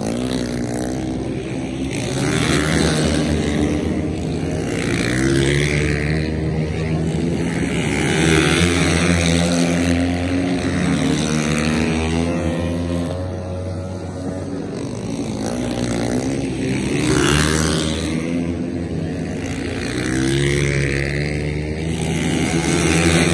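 Several flat-track racing motorcycles running on a dirt oval. Their engines rev up and fall back as the riders go through the turn, and the sound swells and fades as bikes pass. Near the end a close bunch of bikes goes by.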